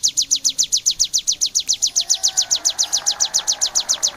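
Ciblek (prinia) calling in a fast, even run of sharp high notes, about ten a second. This is the rapid 'tembakan' volley that songbird keepers play as a masteran for their own birds.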